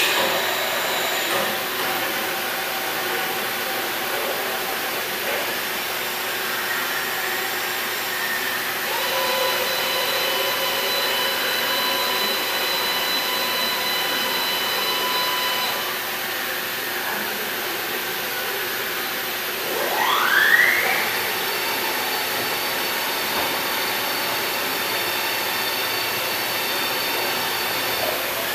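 Milltronics HMC70 CNC horizontal boring mill running under power, a steady mechanical hum and hiss. A steady whine joins in about a third of the way through and drops away just past halfway, and a short rising whine comes about two-thirds of the way through.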